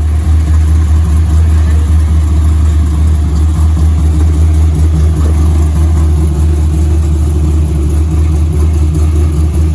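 LS3 V8 swapped into a Nissan 350Z, idling loud and steady.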